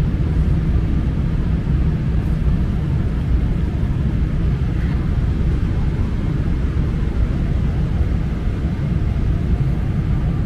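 Airliner cabin noise in flight: the steady low rumble of the jet engines and rushing air, heard from a passenger seat.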